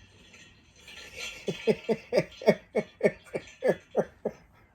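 A person laughing hard: a rapid run of about a dozen short "ha"s, each dropping in pitch, starting about a second and a half in and stopping just before the end.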